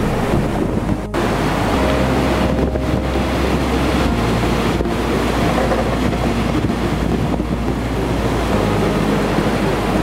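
Large waves breaking and churning over shoreline rocks: a loud, steady rush of surf with a deep rumble underneath.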